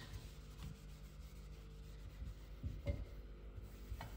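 Hand wiping fingerprints off a metal tow bar guard plate: a faint rubbing, with a soft knock about three seconds in and a click near the end.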